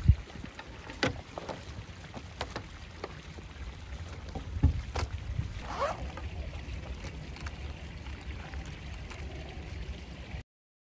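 City road traffic heard as a steady low rumble, with wind buffeting the phone microphone and scattered knocks. A short rising squeal comes about six seconds in, and the sound cuts off abruptly near the end.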